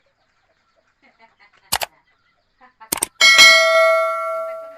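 A few sharp knocks, then a metal object struck once with a loud clang that rings on and fades over about a second and a half.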